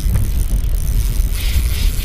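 Wind buffeting the microphone: a loud, uneven low rumble. A higher hiss joins about one and a half seconds in.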